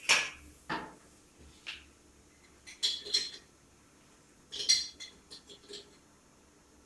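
Kitchen utensil clinking against metal cookware while peas and salt are added to the pan: several separate clinks and knocks, the loudest right at the start.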